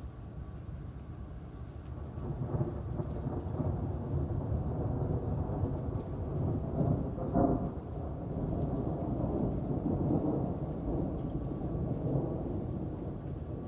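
Rolling thunder over steady rain: a low rumble swells about two seconds in, peaks with a sharper crack about halfway through, then rolls on and slowly fades.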